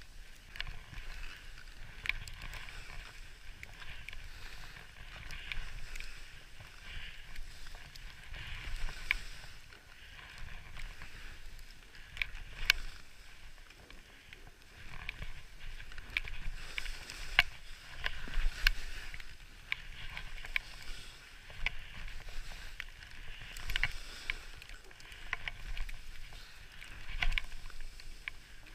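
Skis sliding through deep powder snow, a swishing hiss that swells and fades turn by turn, with scattered sharp clicks and a low rumble underneath.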